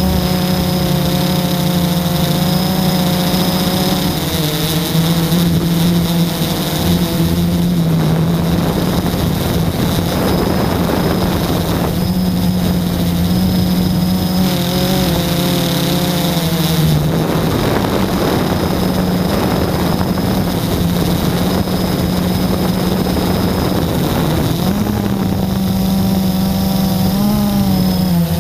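Blade 350 QX quadcopter's four brushless motors and propellers droning, heard from the onboard camera, the pitch shifting up and down as the throttle changes. Twice the drone is partly covered by a stretch of rushing air noise.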